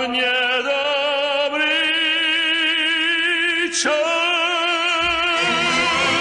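Operatic singing of a Russian romance: a voice holding long notes with wide vibrato over accompaniment, moving to a new held note about four seconds in.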